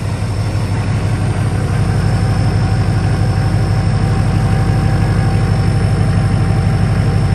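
LBZ Duramax 6.6-litre V8 turbodiesel idling with a steady, rhythmic pulse. It has just started and runs on a freshly primed fuel system with a newly fitted AirDog 150 gph lift pump. It settles slightly louder about two seconds in, then holds steady.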